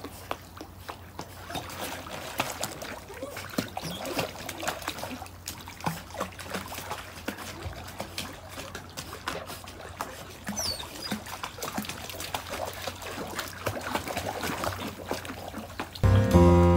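Water lapping and splashing softly as a Labrador retriever and a poodle paddle through a backyard pool, over a steady low hum. Loud music comes in near the end.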